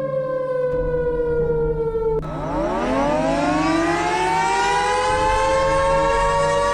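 Civil defence warning sirens: a siren's wail slowly falls in pitch, breaks off abruptly about two seconds in, and a siren then winds up from a low pitch and levels off into a steady, loud tone.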